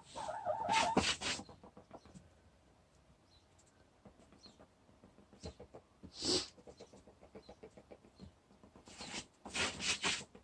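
A hen's short, pitched vocalising call in the first second, then hens pecking and scratching in wood shavings: soft ticks and a few brief rustles.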